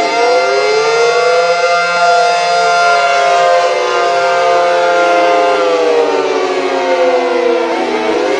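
Synthesized Federal civil defense sirens with 9/12-port rotors wailing, each giving a two-tone chord. Their overlapping pitches rise over the first couple of seconds, sink slowly, and begin climbing again near the end, over a steadier held tone.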